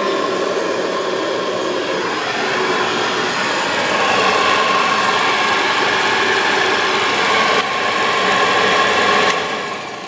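Restored vintage Hoover Model 105 upright vacuum cleaner running, a steady motor whine with the spinning beater brush. Near the end it is switched off and winds down.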